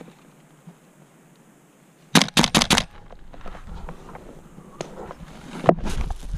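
Airsoft gun firing a rapid burst of about six shots about two seconds in, close to the microphone. Scattered softer clicks and a low rumble follow, with one sharp knock near the end.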